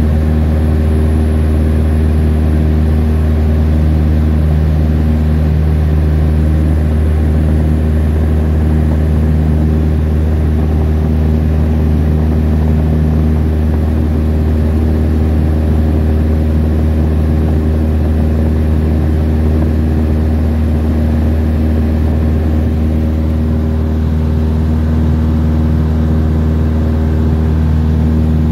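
Single-engine light aircraft's piston engine and propeller droning steadily in cruise flight, heard from inside the cabin as a loud, deep, even hum.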